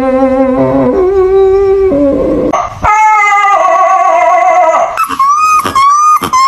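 Dog howling in long drawn-out tones. About two and a half seconds in the pitch swoops up into a long high howl, then breaks into a run of short rising cries near the end.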